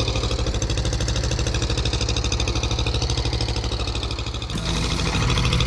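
Inboard engine of a small wooden fishing boat running steadily under way, with a fast, even pulse. The engine sound shifts slightly about four and a half seconds in.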